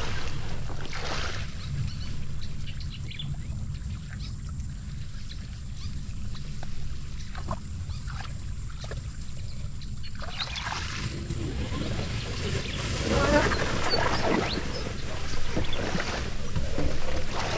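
Water splashing and sloshing as a man wades through a shallow, weed-choked marsh dragging a plastic kayak, the hull brushing through water hyacinth and grass. The splashing is sparse at first, then busier and louder from about halfway through, over a low steady rumble.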